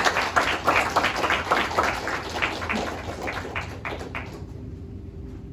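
Applause from a small audience, many separate hand claps, dying away about four seconds in.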